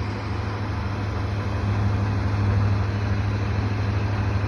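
Vehicle engine running with a steady low drone over a wash of road noise, growing slightly louder about a second and a half in.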